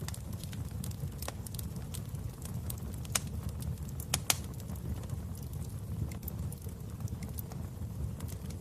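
Wood fire burning in a fireplace: a steady low rumble of flames with frequent small crackles, and a few louder pops a little after three seconds and just after four.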